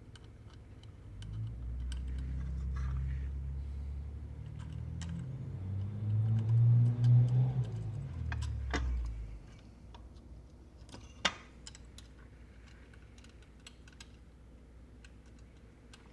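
Small clicks and taps of parts being handled as a circuit board is fitted into a plastic enclosure, with one sharper click about eleven seconds in. A low rumble runs through the first half, loudest a little past the middle, then stops.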